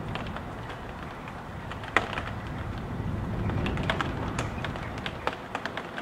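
Gusting wind heard from inside a house as a low rumble that swells about halfway through, with irregular taps of raindrops and drips striking a hard surface. One sharp tap about two seconds in is the loudest.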